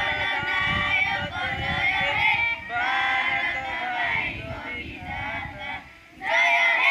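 A group of schoolchildren singing together in unison, in phrases of long-held notes, with a short pause about six seconds in before the singing resumes. A low rumbling noise lies underneath.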